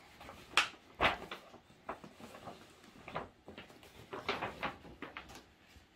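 AirPods Max packaging being handled during unboxing: a series of short rustles, scrapes and light knocks, loudest about a second in and again around four seconds in.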